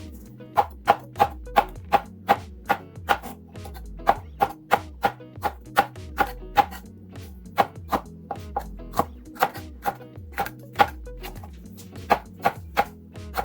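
Knife chopping on a cutting board, quick even strokes about three a second with a few short pauses, over background music with a steady bass line.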